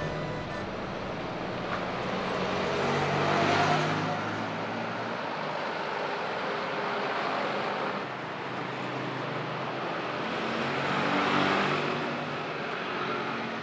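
Road traffic passing on a street: the engine sound and tyre noise of a vehicle swell and fade about four seconds in, and a second vehicle passes the same way about eleven seconds in, over a steady background of traffic.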